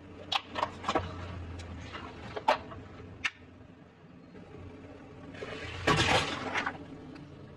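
A car tyre crushing a plastic container, with a handful of sharp cracks in the first three and a half seconds. Then a watermelon bursts and squelches under the tyre about six seconds in, with a wet splattering that is the loudest sound.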